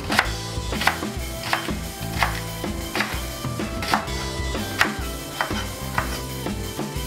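Chef's knife chopping thick green onions into large pieces on a wooden cutting board: regular sharp chops a little under a second apart, over background music.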